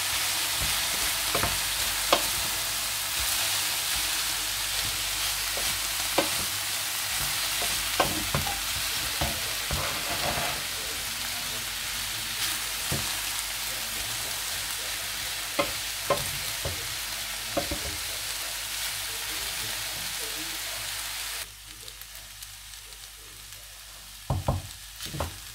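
Pearl couscous and vegetables sizzling in a stainless-steel frying pan while a wooden spatula stirs them, with scattered scrapes and knocks of the spatula against the pan. The sizzle drops away suddenly near the end, and a few louder knocks follow.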